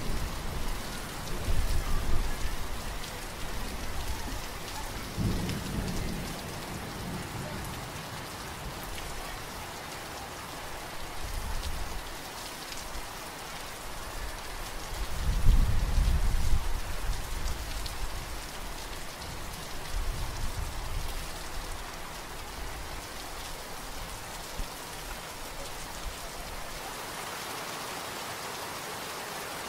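Steady rain falling, an even hiss throughout, with low rumbles of thunder swelling and fading several times, the strongest about halfway through; the rumbling dies away in the last several seconds, leaving only the rain.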